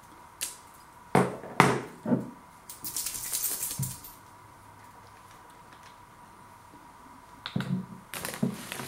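A small glass sauce bottle being handled and opened: a few sharp clicks and knocks, then about a second of crackly plastic rustling as the seal on the cap comes off. Near the end comes a burst of crinkling as a hand goes into a plastic crisp bag. A faint steady whine sits underneath.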